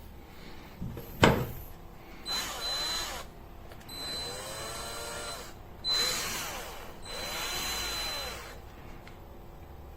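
BLACK+DECKER 12V MAX cordless drill/driver (BDCDD12C) run in four short trigger bursts, its motor whine rising and falling in pitch each time. A sharp knock comes about a second in.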